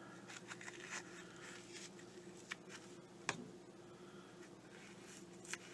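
Faint scratching and a few small clicks as a piece of melamine foam is pushed into a Zippo lighter insert, the clearest click about three seconds in.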